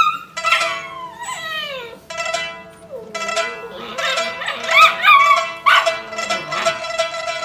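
A husky-type puppy howling: a series of drawn-out, wavering howls, some sliding down in pitch, over background music.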